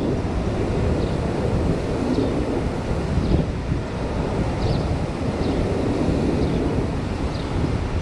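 Wind buffeting the microphone: a steady rushing rumble, with faint short high chirps scattered through it.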